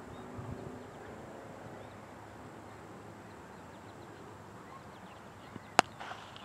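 Cricket ball struck by a bat: one sharp, loud crack near the end, followed by a short shout.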